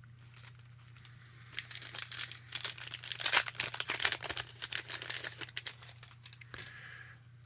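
Plastic trading-card pack wrapper being torn open and crinkled in the hands: a dense crackling from about a second and a half in until about six and a half seconds.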